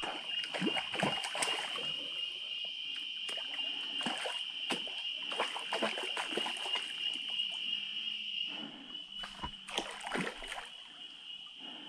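Water splashing and sloshing at the side of a kayak as a freshly hooked piraputanga fights on the line, in irregular small splashes. A steady high-pitched drone runs underneath and breaks off briefly near the end.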